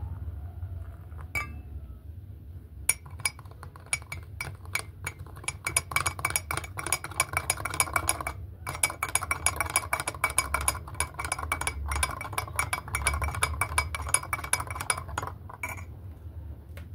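Metal spoon stirring coffee in a glass mug, clinking rapidly against the glass with a ringing ting. The clinking starts about three seconds in, breaks off briefly about halfway and stops near the end.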